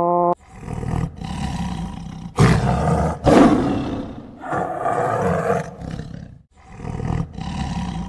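A large animal roaring, a string of rough, loud roars one after another with short breaks between them.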